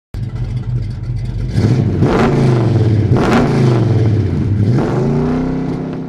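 A vehicle engine revving up and down a few times, fading out near the end.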